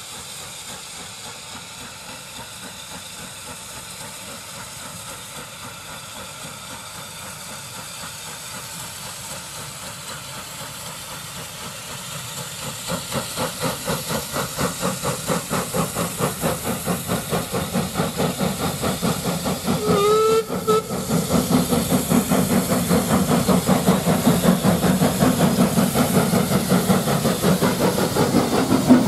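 Ex-Ministry of Defence saddle-tank steam locomotive No 25 working a passenger train: a steady hiss at first, then its regular exhaust beats growing louder from about halfway as it approaches. A brief whistle sounds about two-thirds of the way through, and the engine and coaches pass close by near the end.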